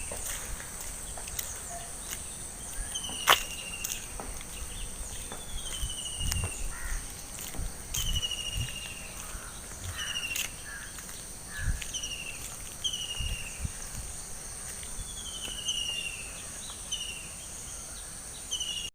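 Morning countryside ambience: a steady high-pitched insect drone, with a bird repeating a short falling call about once a second. Soft low thumps run underneath, and a single sharp click comes about three seconds in.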